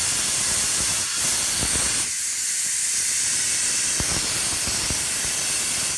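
Compressed air hissing steadily and loudly through an air chuck into a tire's valve stem with the core removed, inflating the tire to seat its bead on the rim. The hiss cuts off at the very end.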